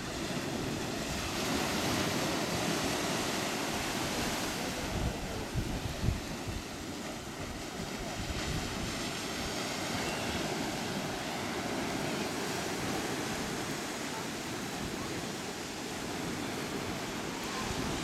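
Small sea waves breaking and washing up on a sandy beach, a steady rush of surf. A few low thumps about five to six seconds in, as of wind hitting the microphone.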